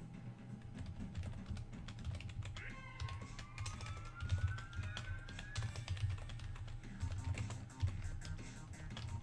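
Rapid clicking of computer keyboard typing over low background music, with a rising tone in the middle.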